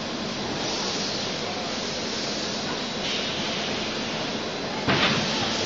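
DKW12T six-head extrusion blow molding machine running: steady machine noise with stretches of compressed-air hiss, and a sudden loud blast of air about five seconds in.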